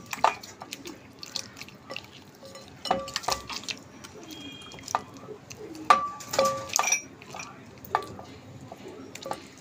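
Wet squishing and slapping of a hand rubbing yogurt marinade into raw chicken pieces in a glass bowl, with irregular knocks and taps against the glass.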